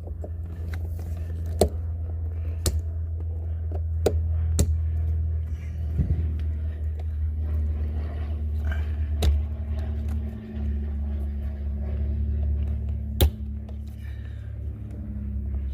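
Sharp metallic clicks and taps of needle-nose pliers working a spring clip out of a shifter, a handful spread over several seconds, over a steady low hum.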